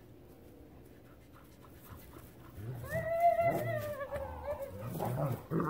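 A dog whining: one long drawn-out whine about three seconds in, then shorter, broken whines.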